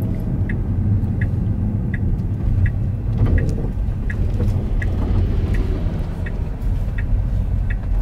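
Car driving slowly and turning in, its low road and engine rumble heard from inside the cabin, with the turn signal ticking evenly about once every 0.7 seconds.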